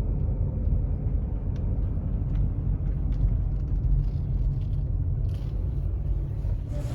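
Steady low rumble of a car driving, with a few faint ticks.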